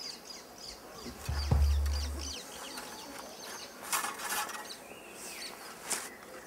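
Birds chirping and calling in the surrounding bush, with a loud, low thud and rumble about a second and a half in, and brief rustling handling noises later on.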